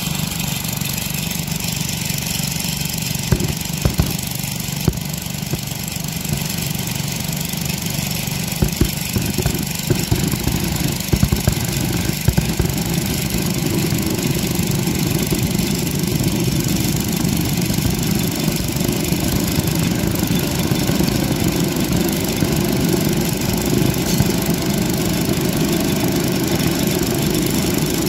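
Small engine of a portable hydraulic power pack running steadily beside the rail, with a few sharp metallic knocks in the first half; from about halfway it runs heavier and louder, as if under load.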